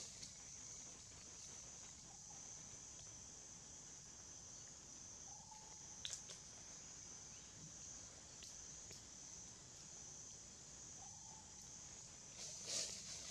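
Faint, steady high-pitched drone of insects in forest, with a few scattered soft clicks and a small cluster of them near the end.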